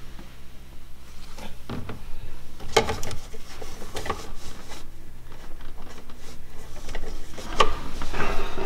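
Handling noises from hands working inside a boat's rigging compartment: a few sharp knocks and clicks over rustling and rubbing as a plastic funnel is set into the hydraulic pump's fill port.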